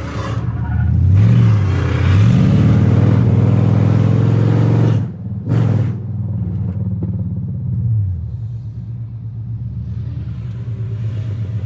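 Car engine idling and revved: a short blip about a second in, then a longer rev held for about three seconds that drops off, one more quick blip, and the engine settles back to a steady idle.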